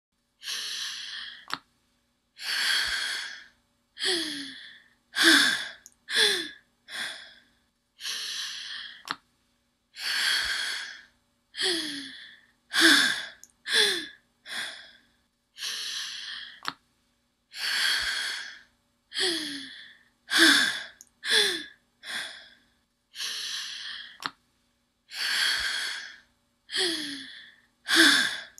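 A person breathing heavily and gasping: longer breaths followed by several quicker, shorter ones with a falling voiced catch. The same sequence of breaths repeats about every seven to eight seconds, like a loop.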